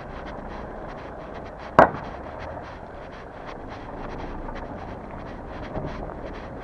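Footsteps walking at an even pace over steady outdoor background noise, with one sharp loud click or knock about two seconds in and a softer knock near the end.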